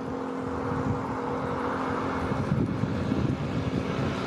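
Twin-engine jet airliner's turbofan engines at takeoff power as it accelerates down the runway toward the listener: a steady jet noise with a steady low hum beneath it.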